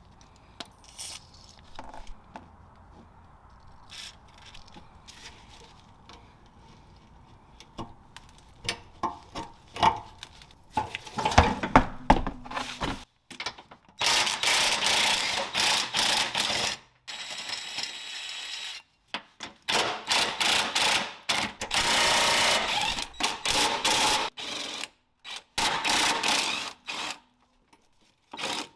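Hand tools working on the car's underbody fasteners: scattered metal knocks and clicks, then several spells of fast mechanical rattling from a tool working bolts loose, each starting and stopping sharply.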